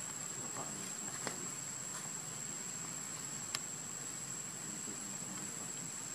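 Steady, high-pitched drone of insects, with a couple of brief sharp clicks, one about a second in and one past the middle.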